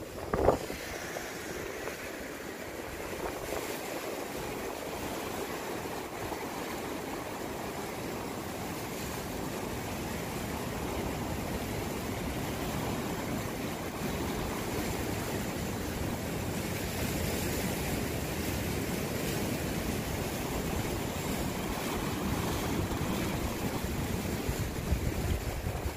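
Sea surf washing over and around shore rocks, a steady rush of waves with wind buffeting the microphone. A brief thump just after the start.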